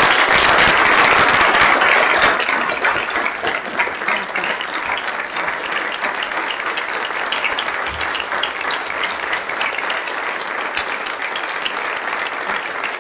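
An audience applauding, loudest for the first couple of seconds and then settling into steady clapping.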